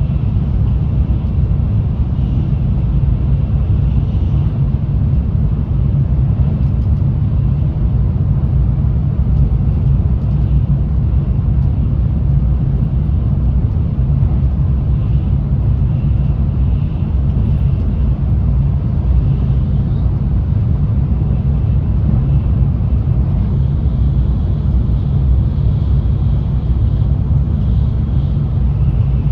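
Tokaido Shinkansen N700A running at speed, heard from inside the passenger car: a steady low rumble that does not change.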